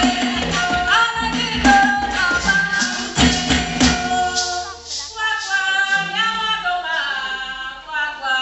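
Live group singing with percussion; about four seconds in the percussion stops and the voices carry on unaccompanied.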